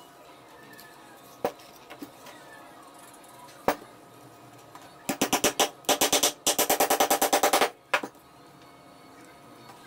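Claw hammer tapping quickly and lightly on a block, about nine taps a second, in a short run and then a longer one about halfway through, after two single knocks.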